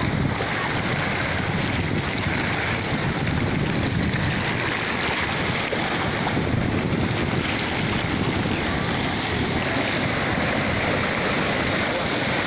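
Fast-flowing floodwater rushing past concrete and spilling over an edge, a steady unbroken wash of noise, with wind buffeting the microphone.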